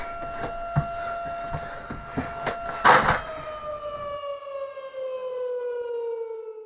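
Civil-defence style warning siren holding a steady wail, then winding slowly down in pitch through the second half. Knocks from people clambering through a wooden attic hatch go with it, and there is one loud thump about three seconds in.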